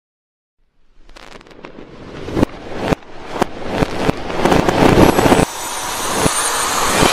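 Fireworks going off: a quick string of bangs and crackles that starts about a second in and grows louder and denser.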